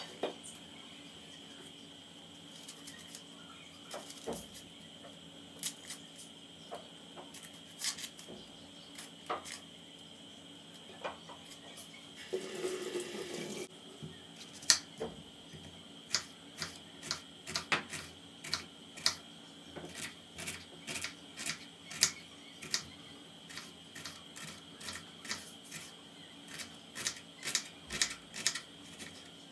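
Quiet hands-on kitchen work: scattered light clicks and knocks of utensils, with a short burst of running water about twelve seconds in, then a closer run of light knocks about one or two a second. A faint steady high tone sits underneath.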